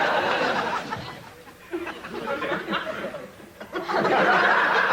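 Sitcom audience laughing in two waves: the laughter fades about a second and a half in, then swells again and holds near the end.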